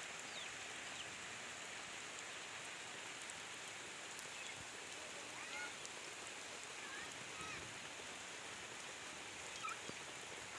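Steady hiss of rain, with scattered short bird chirps over it.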